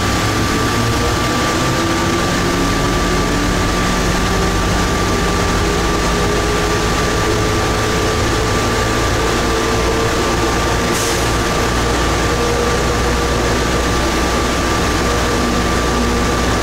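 Rubber-tyred automated people-mover train running through a tunnel, heard from inside the front car: a steady rumble and rolling noise with a steady high tone and a motor whine that climbs slowly in pitch as it picks up speed. A brief hiss about eleven seconds in.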